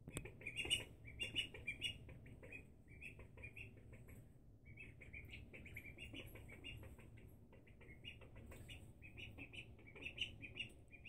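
Ducklings peeping in quick runs of short, high chirps, with a brief lull about four seconds in.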